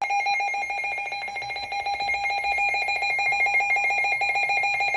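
Emergency alert tone: a loud electronic alarm of several fixed pitches pulsing rapidly and evenly, announcing an incoming warning.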